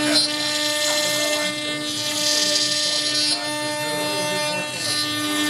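CNC router spindle, run from a VFD, turning an end mill that cuts a pocket in mahogany: a steady whine with a hiss of cutting that grows louder for about a second midway.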